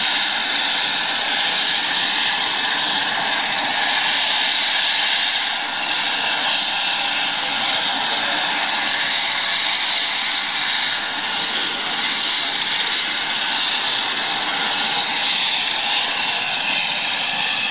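New Jersey State Police medevac helicopter's turbine engines and rotor running, a loud, steady high whine over a rushing noise.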